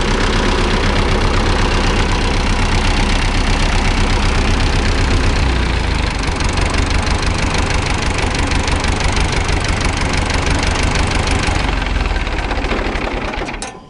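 Long 900 tractor's four-cylinder diesel engine, on its newly fitted injector pump, idling steadily with a rough knocking rhythm, then dying away near the end.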